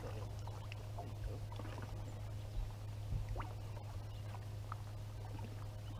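Steady low hum with scattered small knocks and faint splashes as a bass is swung out of the water and handled aboard a boat.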